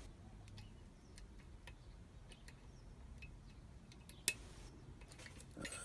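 Faint, scattered ticks of a lock pick working the pins of a pin-tumbler lock under tension, with one sharper click about four seconds in, as the picker works pin 6 just before the lock opens.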